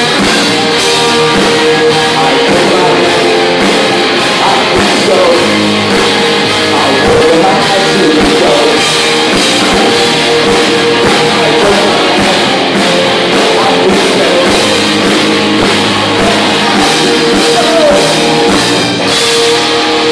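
Live rock band playing: electric guitars, bass and a drum kit with a steady beat of drum and cymbal hits, and a male voice singing at times.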